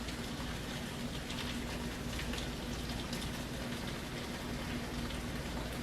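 Chicken and shrimp Alfredo sauce simmering in a pan on the stove: a steady bubbling hiss with faint small pops, over a steady low hum.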